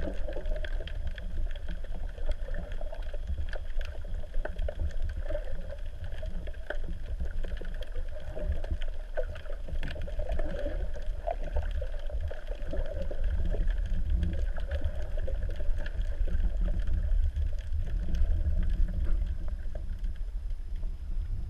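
Underwater sound picked up through a GoPro Hero 3's waterproof housing: a steady, muffled low rumble with many scattered faint clicks.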